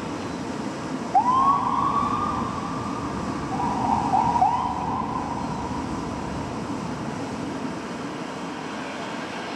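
Fire engine's siren sounding as it responds to a call: it sweeps up quickly about a second in to a held wail, gives a few short rising chirps around four seconds in, and fades by about seven seconds. A steady low rumble runs underneath.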